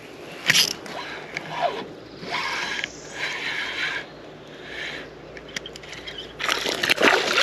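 Handling noise of fishing gear in a kayak: a sharp knock about half a second in, a stretch of mechanical scraping and clicking in the middle, and a louder clattering rustle near the end.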